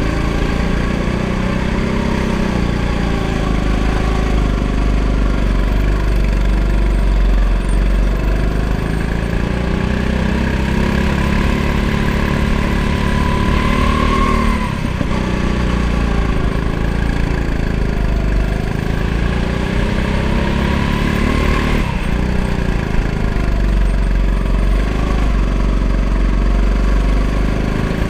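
Go-kart engine heard from the driver's seat, running hard through the laps, its pitch rising and falling over and over as the throttle is opened and eased. There is a short dip in the engine note about halfway through and another near three-quarters of the way.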